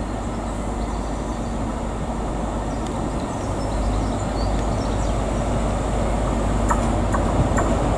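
Class 43 HST power car's diesel engine running as the train rolls slowly into the station, a steady low rumble and hum that grows louder as it comes closer. A few light clicks near the end.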